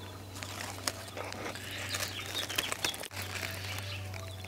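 Nestling birds chirping in many short, high peeps, over a steady low hum that drops out briefly about three seconds in.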